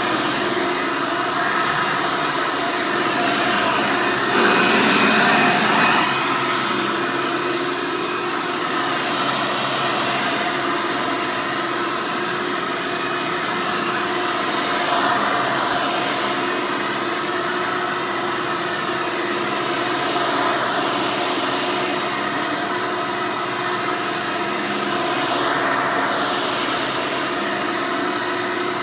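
1999 Hoover Soft & Light (Elite) upright vacuum, its 7-amp direct-air motor running steadily. The hum swells briefly every few seconds and is loudest for about two seconds near the start.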